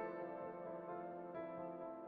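Slow background music of held notes, with a new note entering a little past halfway.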